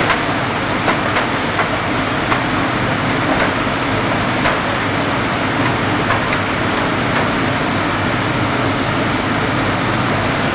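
Steady drone of fire engines running their pumps, with scattered sharp cracks, most of them in the first few seconds.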